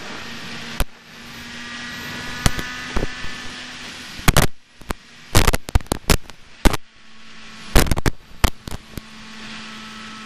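Suzuki GSX-R 750 SRAD's inline-four engine running steadily at highway cruising speed, under a constant rush of wind. Irregular sharp pops of wind buffeting the helmet microphone come throughout and are thickest in the second half.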